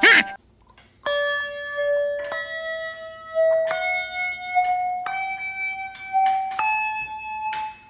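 Metal kitchen spoons struck one after another so that they ring like handbells, about a second in, a slow series of ringing notes that climbs gradually in pitch.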